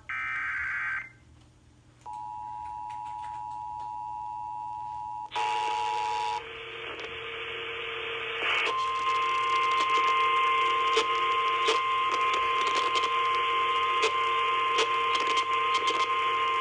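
NOAA Weather Radio alert coming through weather radio receivers: a short screeching SAME digital data burst in the first second, then a steady two-tone alert for about four seconds. Radio static rises, and about eight seconds in the steady warning alarm tone starts and holds, with crackles of static, until it cuts off just before the end.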